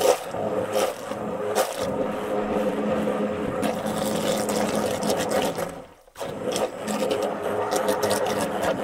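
Immersion blender running in a plastic bucket of water, mixing in carrageenan powder; its steady motor hum cuts out briefly about six seconds in and starts again. A few light clicks sound in the first two seconds.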